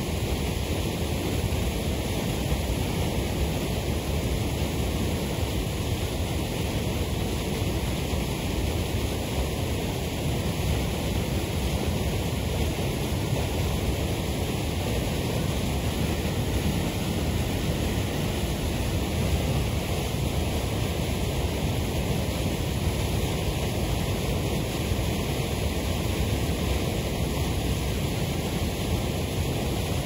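Waterfall: a steady, unbroken rush of falling water.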